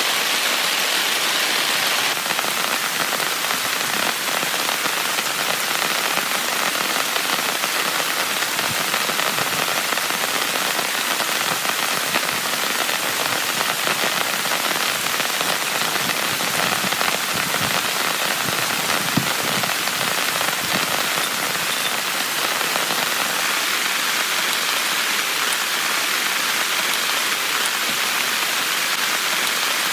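Heavy rain falling steadily on a tent, an even, unbroken wash of drops.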